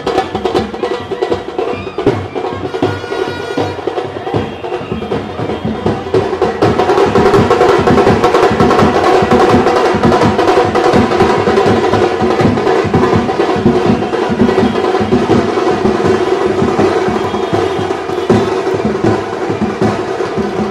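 Festive band music with fast, steady drumming, about three to four beats a second, under sustained melody tones. It grows louder about seven seconds in.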